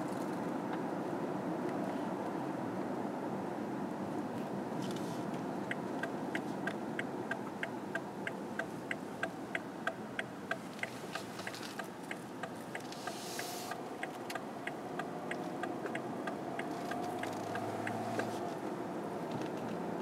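BMW 7 Series driving, with a steady noise of engine and tyres; from about six seconds in until near the end, its turn-signal indicator ticks evenly, about three clicks a second.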